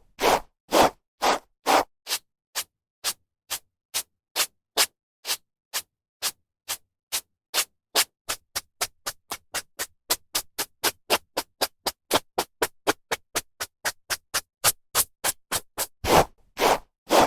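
A hairbrush being drawn through hair in a run of short brushing strokes, about two to four a second, with a few longer, louder strokes at the start and again near the end.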